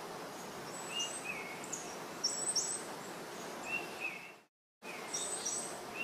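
Small birds chirping in short repeated two-note calls over a steady hiss of background noise. All sound drops out for a moment about four and a half seconds in.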